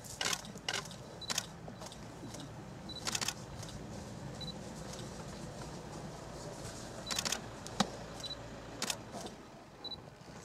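Bursts of rapid single-lens reflex camera shutter clicks, fired several times, with short high peeps between them over a steady low background.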